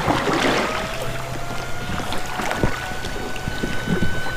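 Creek water rippling and lapping around a small raft, with scattered light knocks. A faint steady tone rises slightly in pitch at the start and then holds.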